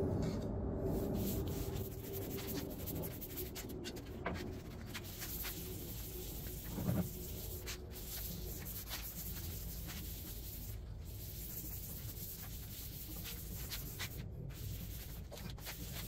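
Paintbrush bristles and wiping scratching over a wooden tabletop as stain is spread on it: soft, scratchy strokes with scattered light clicks and a small knock about seven seconds in.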